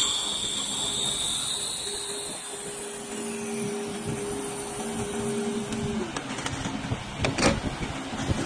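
Woodmaster CNC wood lathe running, with a steady motor whine. A higher whine fades away over the first couple of seconds, and a few sharp knocks come about seven seconds in.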